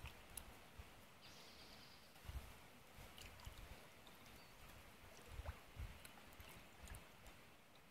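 Near silence: quiet canoe paddling on calm water, faint paddle swishes and drips with soft, irregular low thumps every second or so.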